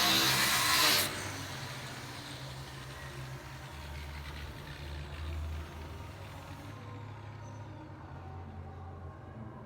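A power tool cutting stops abruptly about a second in, leaving a steady low engine-like rumble.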